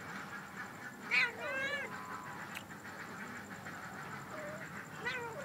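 Domestic cats mating, one cat giving a drawn-out, wavering yowl about a second in and a shorter call near the end.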